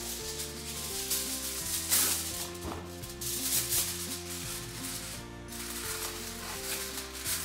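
Aluminium foil rustling and crinkling as a sheet is pulled from the roll, torn off and spread over a baking tin, in a few loud bursts over steady background music.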